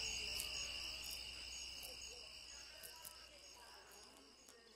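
A steady, high-pitched, insect-like trill over faint music, the whole sound fading out steadily.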